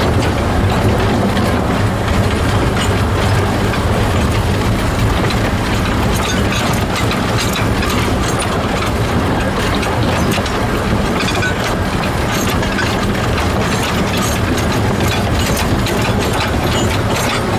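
A 1924 610 mm-gauge steam locomotive and its carriage running steadily along the track: a constant rumble of wheels and machinery with light rattling clicks.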